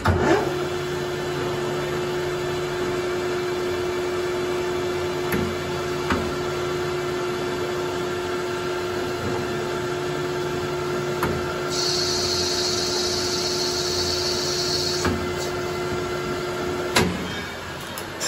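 Metal lathe spindle starting up and running with a steady hum, then switched off a second before the end. For about three seconds midway a high hiss joins it as the cutting tool takes a pass along the metal stock's outside diameter.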